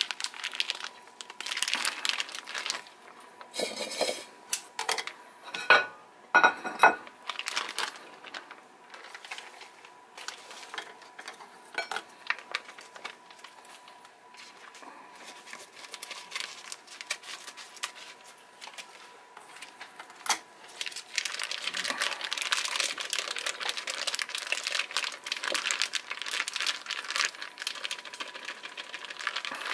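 Plastic sous vide bag crinkling and rustling as it is handled and emptied over a stainless steel bowl, with scattered clicks and a few sharp knocks, the loudest about six seconds in. A faint steady high tone runs underneath.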